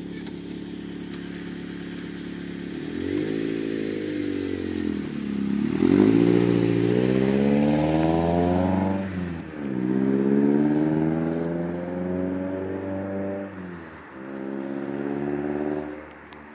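Toyota MR2 SW20's naturally aspirated four-cylinder engine, breathing through a Japspeed aftermarket exhaust and induction kit, idling steadily and then revved in neutral four or five times. Each rev rises and falls in pitch, the longest climbing highest in the middle. The sound drops away near the end.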